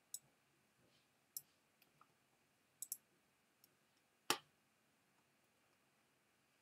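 Computer mouse clicking: about eight short, sharp clicks spread over a few seconds, including a quick double click near the middle and a louder, fuller click a little over four seconds in, against a quiet room.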